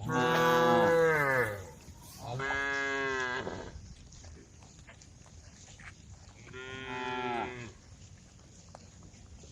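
Cows mooing: three long moos, the first the loudest with its pitch falling away, the second about two seconds in, and a quieter third about seven seconds in.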